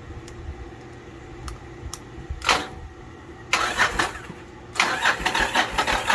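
Motorcycle electric starter cranking in rapid, labouring strokes without the engine catching: a short try about two and a half seconds in, then two longer bursts of cranking. The battery is dead.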